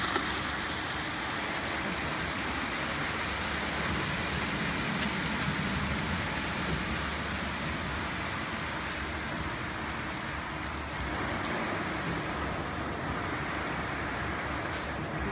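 Haitian XL-200 rollover car wash machine spraying and splashing water over a car while its brushes scrub: a steady hiss of water on the car and the wet floor.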